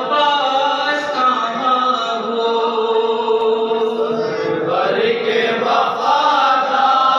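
A man chanting a noha, an Urdu mourning lament for Imam Hasan, into a microphone. He holds long sung notes that slide up and down in pitch.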